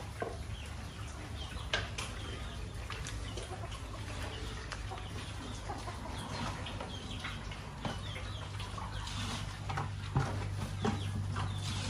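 Chickens clucking and chirping in short, irregular calls, with scattered sharp knocks and a steady low hum underneath.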